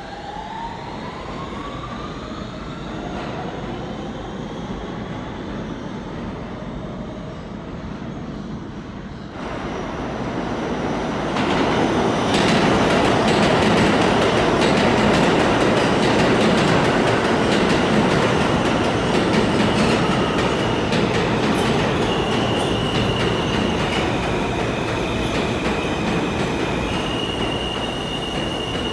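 R160 subway train motors whining upward in pitch as a train pulls out, then from about ten seconds in a second train runs past on the next track with a loud steady rumble and clatter of wheels on rail. Steady high squeals come in over the last third.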